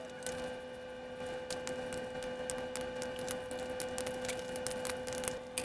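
A steady electrical hum with scattered, irregular light clicks and ticks over it, from small metal parts and hand tools being handled during engine assembly.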